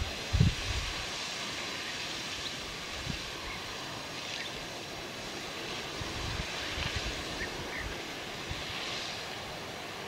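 Wind buffeting the microphone in low rumbling gusts, the strongest about half a second in, over a steady rushing hiss, with a few faint short chirps.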